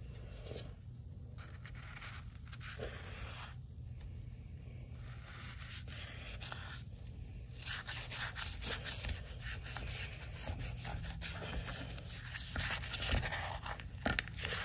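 Toothbrush bristles scrubbing through foam on a lawn mower wheel's rim: spells of scrubbing that come and go, turning into quick, short back-and-forth strokes about halfway through.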